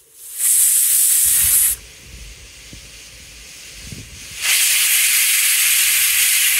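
Hawkins Contura pressure cooker venting steam through its weight-valve pressure regulator: two loud hissing bursts, the first about a second and a half long, the second, starting about four and a half seconds in, about two and a half seconds long.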